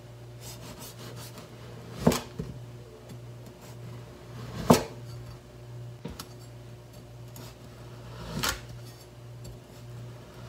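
Chef's knife slicing through a sugar-coated cookie dough log and knocking on a plastic cutting board: three clear knocks a few seconds apart, with fainter ticks between them. A low steady hum runs underneath.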